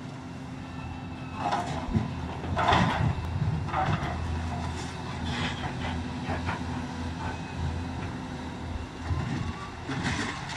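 Hydraulic excavator's diesel engine running steadily while its bucket tears into a brick building. Crashes and clatters of falling rubble come several times, the loudest about three seconds in.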